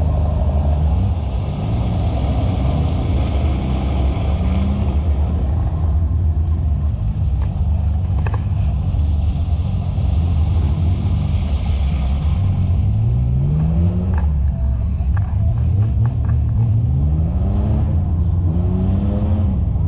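Off-road vehicle engines running and revving as they push through deep mud. In the second half the engine pitch rises and falls again and again as the throttle is worked.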